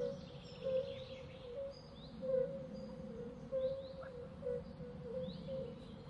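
Birds calling in a natural ambience: short chirps and quick falling whistles repeating every second or so, over a steady low hum.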